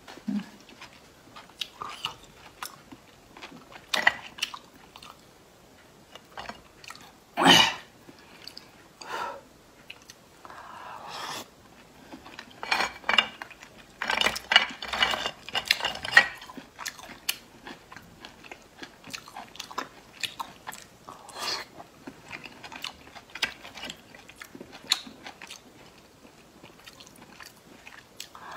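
Oysters being slurped from the shell and chewed, with wet mouth sounds and many small clicks. The loudest slurps come about seven seconds in and again around fourteen to sixteen seconds.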